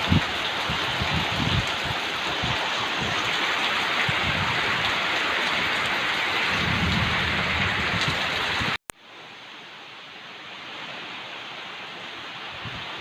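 Heavy rain pouring down steadily. About nine seconds in the sound drops out for an instant, then returns as much softer rain.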